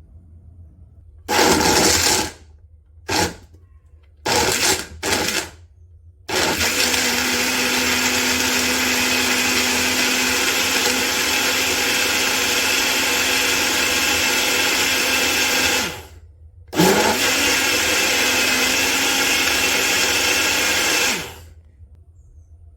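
Breville Blend Active 350 W personal blender pulsed in a few short bursts, then run steadily for about ten seconds, stopped briefly, and run again for about five seconds before switching off.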